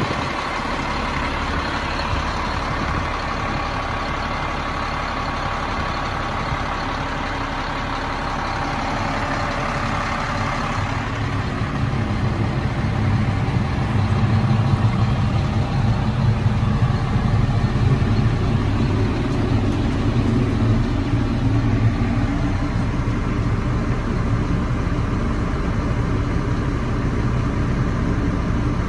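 2006 Sterling L7500 dump truck's diesel engine idling steadily. About eleven seconds in the sound turns deeper and louder, as heard from inside the cab.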